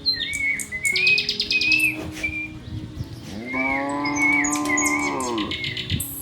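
Small birds chirping repeatedly while a cow gives one long moo of about two seconds in the middle, rising at the start and falling away at the end.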